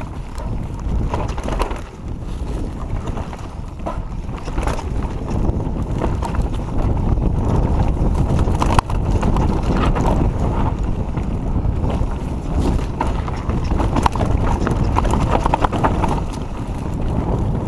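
Giant Reign full-suspension mountain bike descending a rough dirt trail at speed: steady wind buffeting on the microphone under the rattle and clatter of the bike and tyres over bumps, with many small knocks and one sharp knock about nine seconds in.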